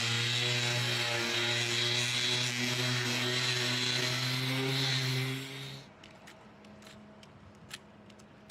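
A power tool runs steadily with a low hum and hiss, then shuts off about six seconds in, leaving a few faint clicks.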